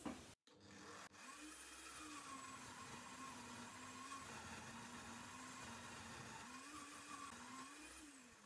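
Parkside wood lathe's electric motor running with a faint, steady whir. Its pitch rises briefly about a second and a half in and again near the end, and holds lower and level in between.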